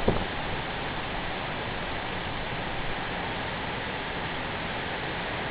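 Strong wind, steady at about 35 knots, blowing across the microphone as a constant rushing noise, with a brief thump of a gust hitting it right at the start.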